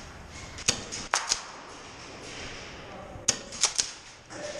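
Airsoft guns firing single shots, heard as sharp cracks: three close together about a second in, and three more a little past three seconds in.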